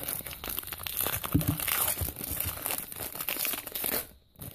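Foil wrapper of a trading-card pack crinkling and crackling as it is peeled off the card stack and crumpled in the hands, dying away about four seconds in.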